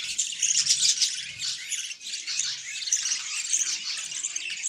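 A flock of budgerigars chattering and squawking together, a continuous high warble of many overlapping calls.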